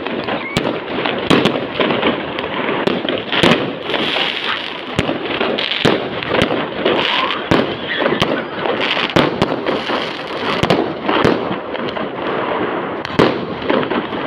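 Fireworks going off: a dense barrage of sharp bangs at uneven intervals over continuous crackling.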